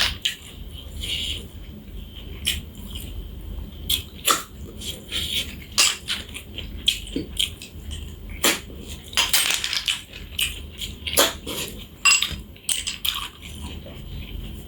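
Irregular sharp clacks and scrapes of a utensil against a cooking pan as a spicy pork dish is stirred, over a low steady rumble.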